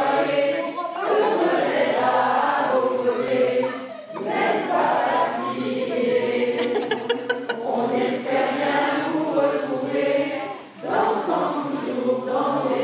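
A small group of men and women singing a song together without accompaniment, breaking between phrases about four seconds in and again near eleven seconds.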